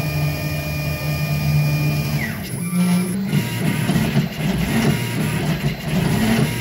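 Stepper motors of a home-built CNC router driving its axes. First comes a steady high whine at 16th microstepping, which winds down about two seconds in. About three seconds in it gives way to a choppier, more irregular stepping noise from the same motors at quarter microstepping.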